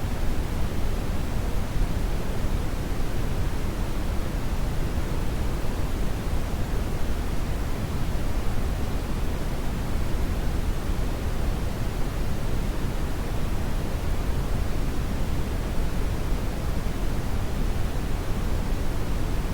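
Steady synthetic brown noise: an even, deep rushing hiss, strongest in the low end and fading toward the highs, with no changes.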